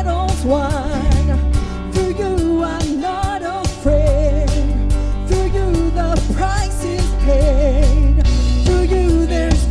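Live Christian worship band: a woman sings the lead melody with vibrato over acoustic guitar, heavy bass and a steady drum beat.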